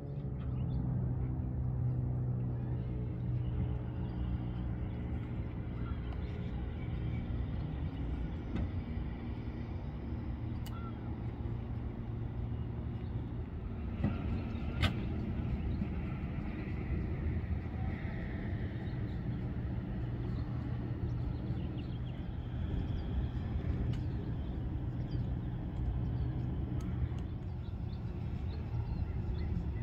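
Aerial ladder fire truck's diesel engine running steadily, with two sharp clicks about a second apart around the middle.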